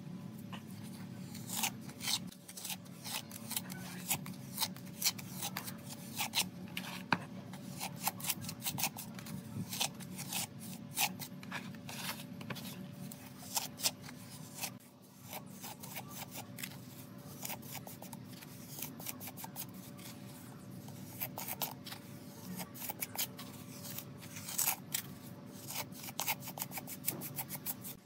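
Small plastic scoop scraping and clicking against the cement and brick inside a stove's firebox as loose mortar grit is worked and scooped out, a fast irregular series of scrapes over a steady low hum.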